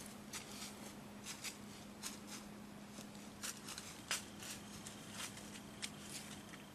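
Faint, irregular dry ticks and rustles, a few a second, over a faint steady low hum.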